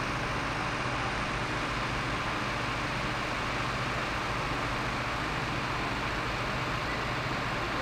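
Diesel engine of an Iveco road-rail fire-brigade vehicle running steadily, with an even hiss over it.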